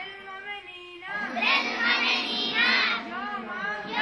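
A group of young schoolgirls chanting together in unison. A brief lull, then a loud burst of many voices at once about a second in, easing off near the end.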